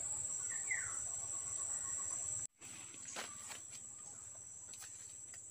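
Forest ambience: insects keep up a steady high-pitched drone, with two short bird chirps about half a second in. After a brief dropout midway, scattered light crackles of feet stepping through dry leaf litter.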